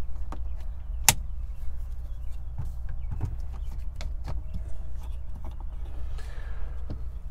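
Composite ball-and-socket phone mount being swivelled by hand: scattered plastic clicks and knocks, the sharpest about a second in, over a steady low hum.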